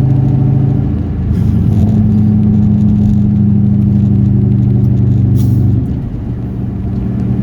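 1998 Mustang Cobra's 4.6-litre DOHC V8 running under way at a steady note. The note dips briefly about a second in, holds steady at a higher pitch, then falls away near six seconds.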